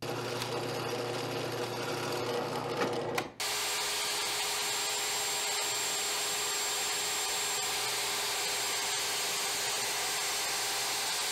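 A drill press runs and bores into plywood for about three seconds. Then, after a sudden change, a plunge router runs steadily with a high whine and stops abruptly near the end.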